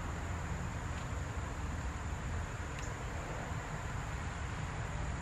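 Outdoor garden background: a steady low rumble with a constant high-pitched insect drone over it. A couple of faint clicks come from pepper plants being handled.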